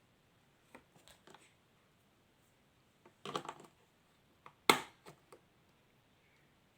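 Batteries and small plastic parts of a tabletop air hockey toy's battery compartment being handled: a few light clicks, a short clatter about three seconds in, and a little later one sharp click, the loudest.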